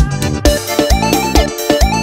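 Instrumental passage of beiradão dance music: a keyboard lead melody stepping between notes over a steady drum beat and bass.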